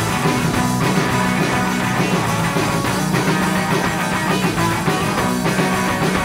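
A rock band playing an instrumental passage between sung lines: electric guitars, bass and drums at a steady beat.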